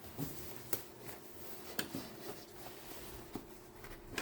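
A few faint plastic clicks and knocks, spaced a second or so apart, as an engine air box is pushed down into place.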